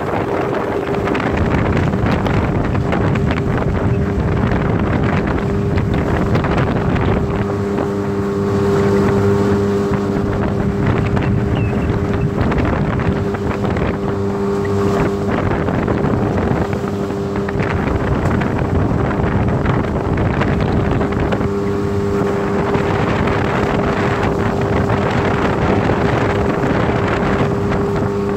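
Small four-stroke outboard motor running at a steady cruising speed, holding one even pitch throughout. Wind buffets the microphone, over the rush of water from the boat's wake.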